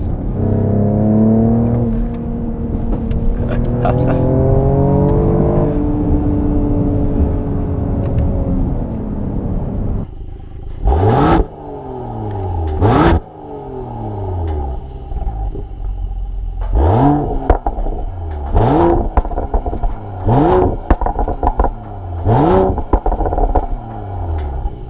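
Mercedes-AMG GLE 53's turbocharged inline-six pulling up through the gears and then easing off. After that it is revved hard from standstill, heard at the exhaust tips: twice in Comfort mode, then four times in Sport mode. Each rev climbs fast to the particulate-filter rev limiter at 4000 rpm and drops back.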